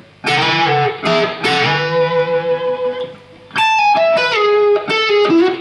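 Electric guitar playing an unaccompanied pentatonic blues lick in two phrases of single notes with slides and bends, with a short pause about three seconds in.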